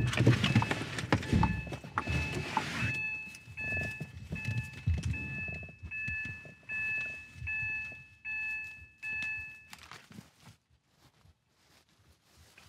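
Isuzu pickup's cab being left: rustling and a thunk as the door opens, then the vehicle's warning chime dinging over and over, about once every three-quarters of a second, a door-open or key-left-in alert. It stops about ten seconds in with a soft thump.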